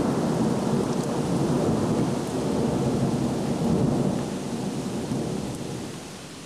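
Thunder rumbling, loud for the first four seconds or so and then dying away, with rain falling underneath.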